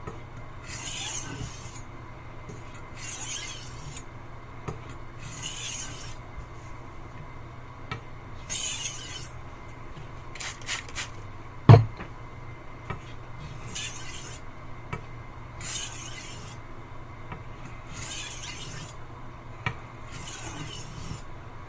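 Steel blade of a Wüsthof Classic chef's knife drawn across a wet water stone in slow, regular sharpening strokes, a scraping hiss about every two to three seconds. One sharp knock about halfway through.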